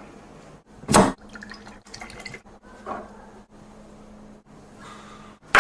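Liquid poured from a bottle, trickling and dripping, after a sharp knock about a second in.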